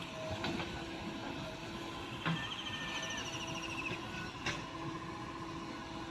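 Diesel engine of a JCB 3DX backhoe loader running steadily, with a few sharp metallic knocks and a brief high chattering squeak midway.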